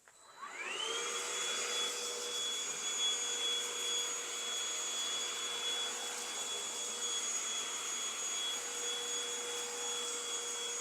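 Eureka cordless stick vacuum switched on at its highest setting: the motor whines up to speed in the first second, then runs steadily with a high-pitched whine over a rush of air.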